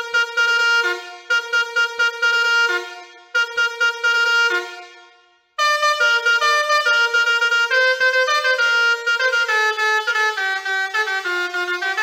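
Basuri 4.0 six-trumpet musical air horn playing preset melodies in brassy, buzzing horn notes: a short phrase of a few notes repeated three times, dying away about five seconds in, then a different, quicker tune of rapid stepping notes.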